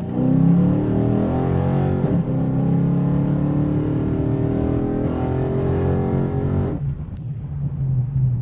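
2013 5.7 Hemi V8 with headers and no catalytic converters accelerating at full throttle, its revs climbing, dipping about two seconds in, and climbing again, then falling back to a steady low drone near seven seconds in. The exhaust sounds really open under load, which the owner takes for an exhaust leak he cannot locate.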